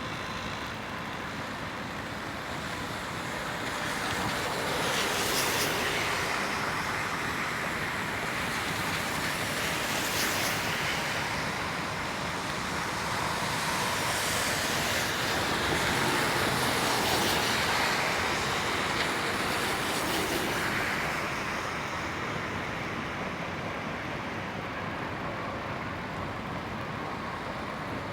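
Outdoor city ambience: a steady rush of traffic noise that swells and fades every few seconds as vehicles pass.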